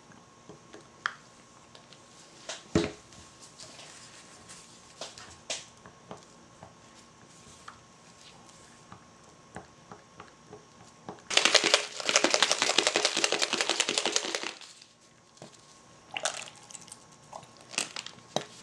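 Spatula stirring colorant into soap batter in a small plastic cup, with scattered light clicks and knocks against the plastic. About eleven seconds in comes a louder spell of fast, even rasping that lasts about three seconds.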